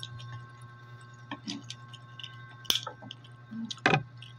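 Steamed mussels being picked apart by hand: a few sharp clicks of the shells knocking together, with soft wet squishes as the meat is pulled free. A steady low hum runs underneath.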